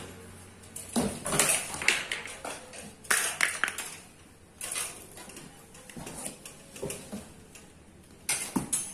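A 20-inch Phoenix bicycle being lifted out of its cardboard shipping box: cardboard scraping and rustling with metal clinks and rattles from the frame, rear rack and spokes, in irregular bursts.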